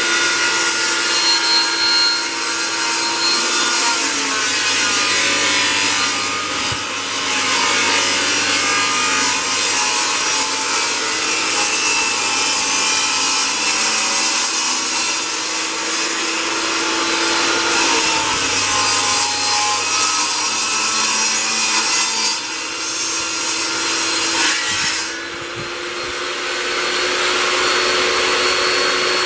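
Bosch GTS10J table saw ripping a 15 mm plywood board. The motor's tone sags as the blade bites into the wood and rises again as the blade runs free, about four seconds before the end.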